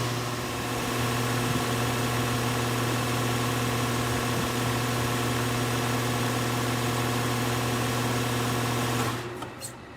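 Air conditioner condenser units running with a steady hum, then shutting down about nine seconds in, the hum falling away quickly with a few clicks as they stop.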